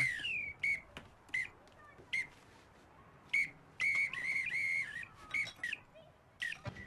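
A small whistle blown in a string of short toots, with a longer warbling blast about four seconds in.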